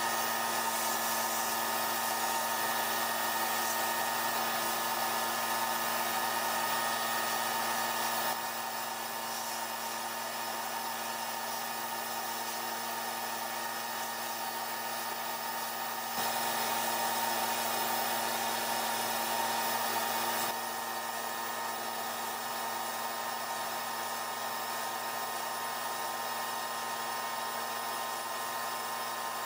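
Sandblast gun in a blast cabinet blasting rust off an axe head: a steady hiss of compressed air and abrasive over a steady hum with a few held tones. The level drops and rises slightly a few times.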